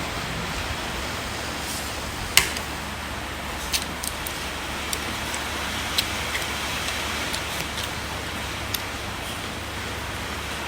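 Eating utensils clicking against a plate a handful of times, the sharpest about two and a half seconds in, over a steady hiss and low hum.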